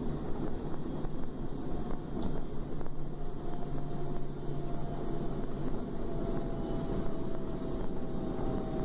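Running noise of a DB class 425 electric multiple unit heard from on board: a steady rumble of wheels on the rails with a faint, nearly steady whine above it.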